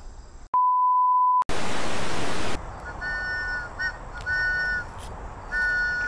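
A steady electronic beep lasting about a second, then a loud burst of static hiss for about a second. After that, a few short, steady whistle-like notes sound over faint background hiss.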